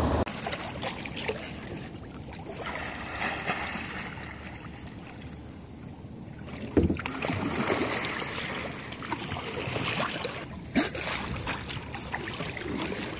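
Water sloshing against the side of a boat on open sea, with a couple of sudden sharp splashes partway through.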